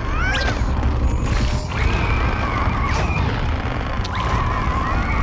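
Cartoon sound effects: a steady low rumbling with knocks, over which the ant characters give high squeaky cries that rise and hold for about a second at a time.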